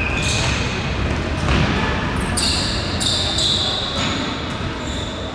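Futsal play on an indoor sports-hall court: ball kicks and running footsteps, with shoes squeaking on the court floor a few times around the middle, over players' voices in the echoing hall.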